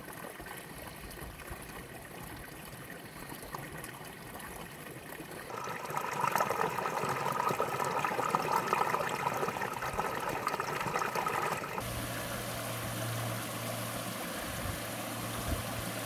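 Water of a rocky mountain stream spilling over a small cascade into a pool, a steady rush of splashing water. It grows louder about five and a half seconds in and changes in tone about twelve seconds in.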